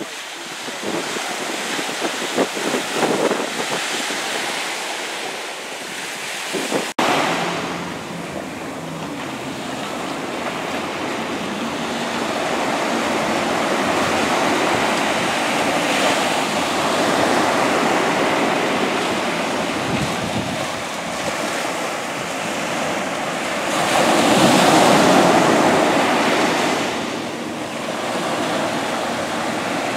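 Small waves breaking on the beach in a steady wash of surf, with wind buffeting the microphone; the surf swells louder for a few seconds about three-quarters of the way through.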